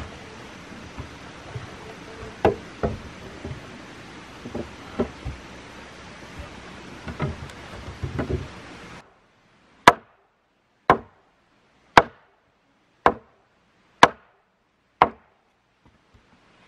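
Wood being chopped: six sharp, evenly spaced chopping strikes about a second apart, against dead silence. Before them there is a steady outdoor hiss with a few scattered knocks.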